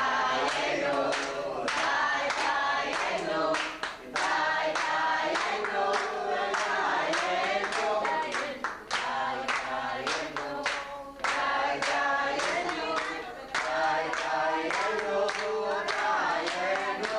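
A group of voices singing together, with hands clapping along.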